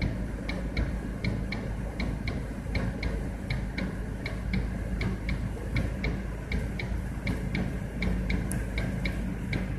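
Car's turn-signal flasher ticking steadily, about three clicks a second in on-off pairs, over a low steady rumble.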